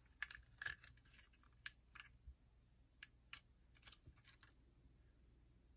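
Faint, light clicks of a built LEGO Jeep's plastic pieces as it is handled and turned over in the hands, about ten irregular clicks in the first four and a half seconds.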